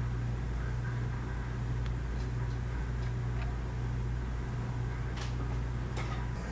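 Steady low hum, with a couple of faint clicks near the end.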